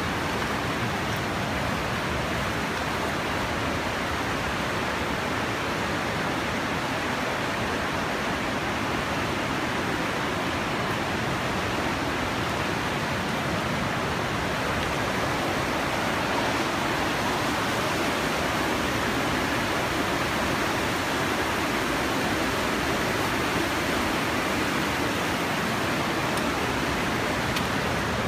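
Whitewater of the Partnach, an alpine mountain river, rushing through a narrow rock gorge: a steady, unbroken rush of water.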